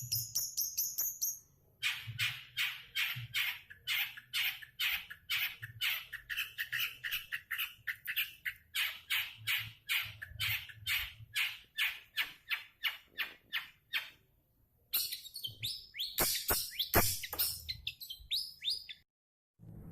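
Long-tailed shrike (cendet) calling: a fast run of sharp, repeated notes, two or three a second, then a harsher, denser burst of squawking calls near the end.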